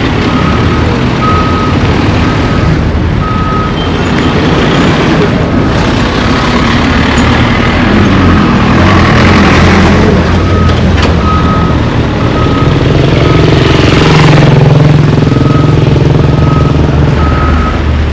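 Heavy road-construction machinery running, with a deep engine rumble that grows stronger and steadier in the later part. A reversing alarm beeps about once a second, fading out in the middle and returning.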